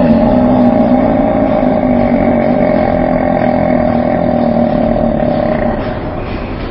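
Extremely loud, drawn-out roar-like belch, held for nearly six seconds at a steady pitch that sags slightly before it stops.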